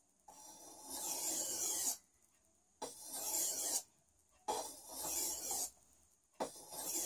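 Kitchen cleaver blade scraping across a sharpening stone in four long strokes of about a second each, with short pauses between, as the edge is honed at a held angle.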